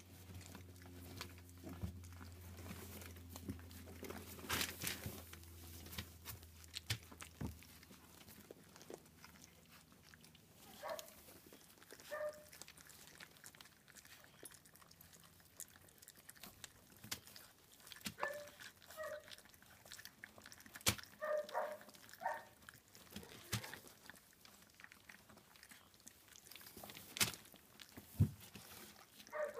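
German Shepherd puppies licking, smacking and chewing wet puppy mush from a hand, a steady patter of small wet clicks, with short high puppy whimpers in a few brief clusters.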